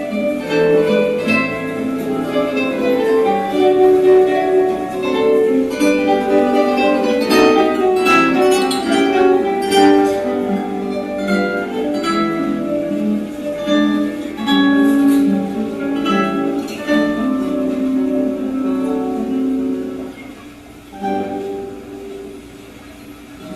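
A quartet of guitars playing an ensemble piece together, with plucked melody notes over lower accompanying parts. The playing softens about twenty seconds in, pauses briefly, then resumes.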